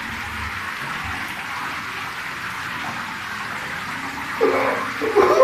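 Shower spray running, a steady hiss of water.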